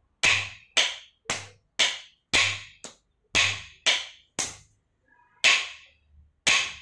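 Two chenda students beating curved chenda sticks on wooden tree-stump practice blocks: sharp, ringing wooden strikes about two a second, with one longer pause near the end. This is sadhakam, practice of the thakkita rhythm pattern.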